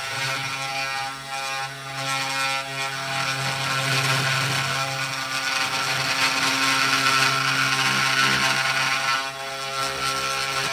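The small DC spindle motor of a 3018 mini CNC router runs with a steady hum. Its carving bit cuts into an end-grain hardwood cutting board, adding a rough, hissing cutting noise on top.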